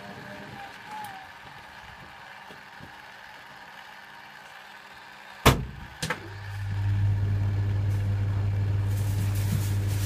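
Bendix 7147B washing machine: two sharp clicks about halfway through, then a motor inside starts up with a low steady hum that swells over about a second and then holds.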